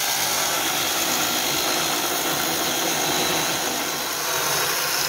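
Cordless 21-volt mini chainsaw running steadily, its electric motor and chain cutting into a small wooden post.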